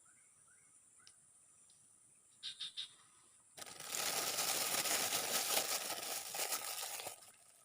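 Faint chirping repeated about twice a second, a few short clicks, then loud rustling or crinkling for about three and a half seconds that stops suddenly.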